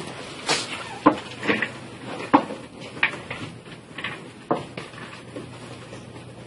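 Irregular light knocks and shuffling as people walk up to a wooden table and sit down at it, several short sharp clicks spread unevenly over a low steady hum.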